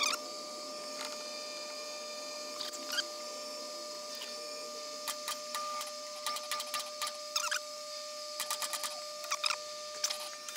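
A 5/16-24 tap cutting a thread in a metal workpiece on a lathe as the chuck is turned by hand, making short, irregular metallic squeaks and clicks, over a steady machine hum.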